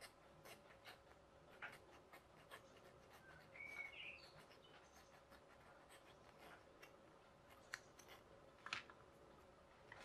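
Faint, irregular short scrapes of a steel needle file worked through the bore of a 3D-printed plastic gear, shaving down a ridge left where the printed filament sagged. A brief faint chirp comes about halfway through.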